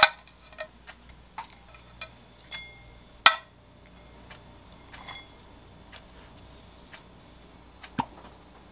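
Metal tongs clicking and tapping against an enamelware bowl as bacon is dropped in, with light ringing clinks. The loudest is a sharp clink a little over three seconds in, and there is another click near the end.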